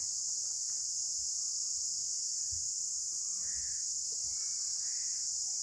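Steady, high-pitched chirring of an insect chorus, unbroken throughout, with faint indistinct sounds far off beneath it.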